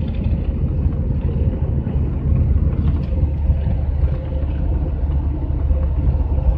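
Steady low rumble of a GAZelle van's engine and tyres on the road at cruising speed, heard from inside the cab.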